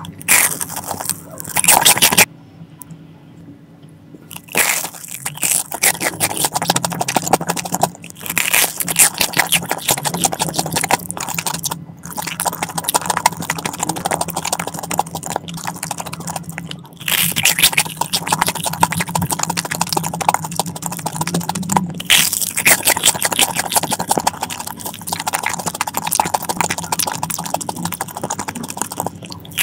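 Close-miked crunching and chewing of a Korean corn dog with a sugar-dusted breadcrumb crust: repeated crisp bites and chewing, with a brief quieter pause about two seconds in.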